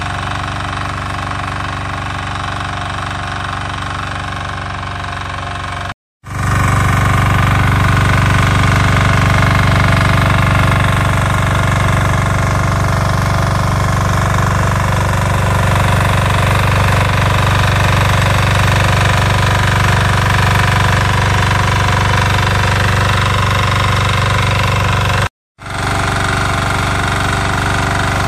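Weima BSR 1100 BE tiller's 12 hp single-cylinder diesel engine running steadily under load as the tiller works the soil. The sound cuts out for an instant twice, about six seconds in and near the end, and is louder after the first break.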